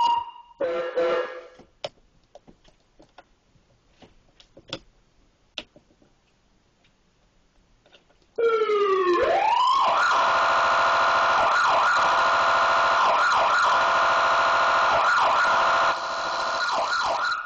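Southern VP fire truck siren. Its tone cuts off at the start, it gives a short blast about a second in, and after several seconds of faint clicks it comes back loud at about eight seconds, sweeping and then warbling rapidly until it stops near the end.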